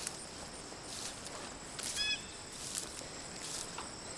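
Insects chirping steadily in a high, pulsing trill of about four beats a second, with footsteps and rustling through garden plants. A short bird call sounds about two seconds in.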